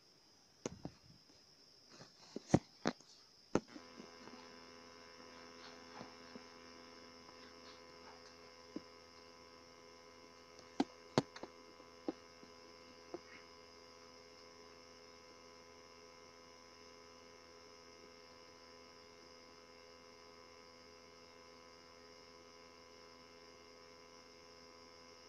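A few sharp clicks and taps in the first four seconds, then a steady electrical hum that comes on suddenly about three and a half seconds in and holds unchanged. Another cluster of clicks comes around eleven to thirteen seconds in.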